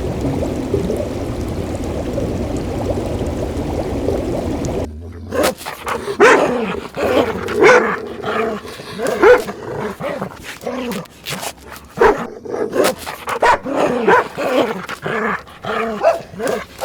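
A steady rushing noise that cuts off suddenly about five seconds in, followed by dogs yipping, whimpering and barking in quick, short calls, several a second.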